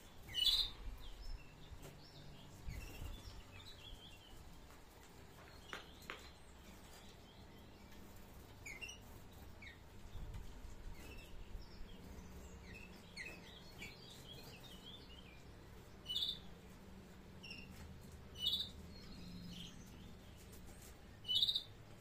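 Domestic canaries chirping and twittering in short scattered calls, with a few sharper, louder calls standing out, one about half a second in and three more near the end.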